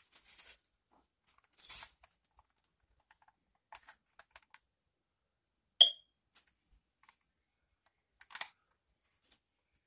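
Scattered light clicks and rustles of a hot glue gun, a floral foam block and silk flowers being handled while gluing, with one sharp, loud click about halfway through.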